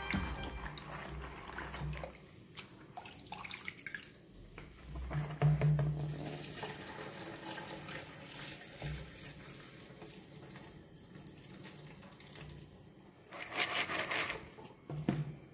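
Lentils being washed by hand in a plastic bowl of water: water sloshing and swishing with small clicks of the lentils, then the water poured off into a plastic strainer in a metal sink. Louder swishes come about five seconds in and again shortly before the end as the wet lentils are swirled in the bowl.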